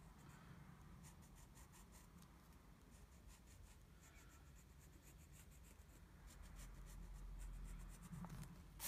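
Pencil lead scratching faintly on lined paper in runs of short, quick strokes, with a sharper, louder scrape near the end.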